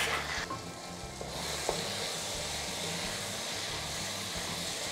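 Freshly added chayote cubes frying in hot oil with onion-tomato masala, a steady sizzle that is louder at first and settles within half a second, while a wooden spatula stirs them in the pan; one light knock about a second and a half in.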